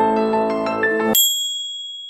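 Soft keyboard intro music that stops abruptly about a second in, ending on a single high bell-like ding that rings on and slowly fades.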